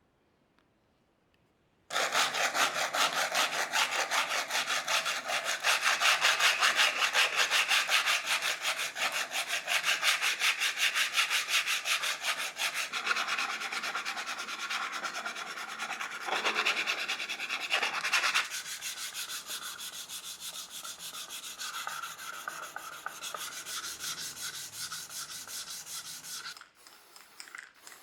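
Fast, steady rubbing against a hard surface, in quick even strokes, starting abruptly about two seconds in and stopping shortly before the end.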